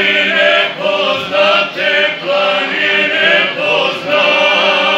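Male folk vocal group singing unaccompanied in harmony, several voices holding long notes in short phrases with brief breaths between them.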